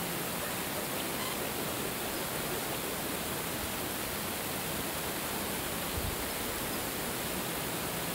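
A steady, even hiss, with a faint low hum coming in over the second half and a soft low thump about six seconds in.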